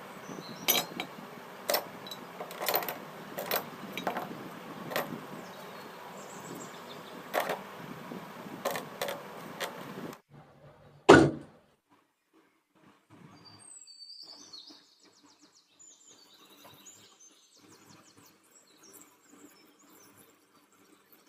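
A series of irregular sharp knocks and taps over a steady hiss. After an abrupt drop about ten seconds in, there is one loud thump, then faint bird chirps and scattered light ticks.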